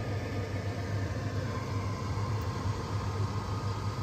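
A steady low machine hum with a constant rushing noise over it, starting suddenly just before and running unchanged.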